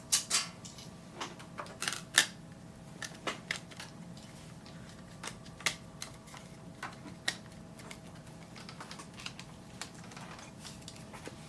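Irregular small clicks and taps of tools and parts being handled at a workbench. A few louder ones come close together in the first two seconds, then sparser ones, over a faint steady hum.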